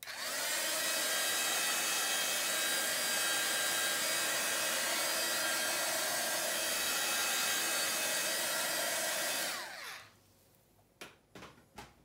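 Small handheld heat gun switched on, its fan blowing and whining steadily for about ten seconds. It is switched off near ten seconds in and its whine falls away, followed by a few light clicks.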